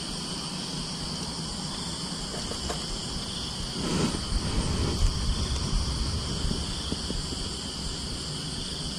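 Steady, high-pitched chorus of insects, shrilling without a break. About four seconds in, a rustling swish with a low rumble comes from an ultralight spinning rod being cast close to the microphone.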